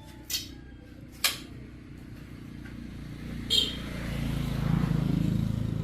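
Stihl 08S two-stroke chainsaw engine running, with a couple of sharp clicks early on, then getting louder from about three and a half seconds in as it is revved up.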